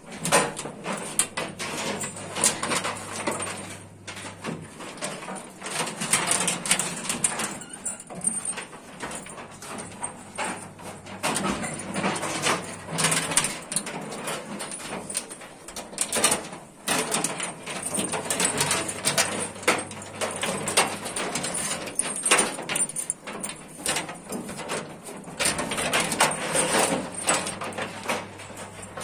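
A young bull tethered by a chain at a feed trough, moving about so that the chain and stall fittings clank and knock irregularly.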